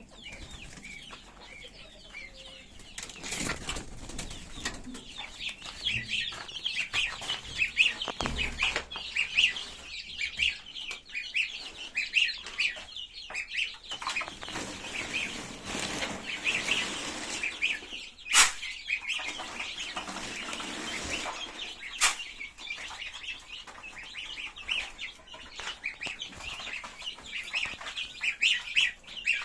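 A flock of farm birds feeding: many birds chirping and peeping at once, with wing flapping, and two sharp knocks in the second half.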